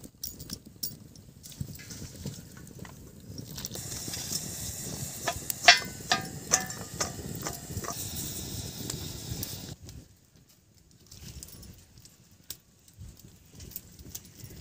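Cut bhanda fruit pieces being dropped into and mixed by hand in a steel bowl: irregular knocks and clinks on the metal with a rubbing rustle, and a quick run of sharp clinks in the middle that leave the bowl ringing briefly. It goes quieter for the last few seconds.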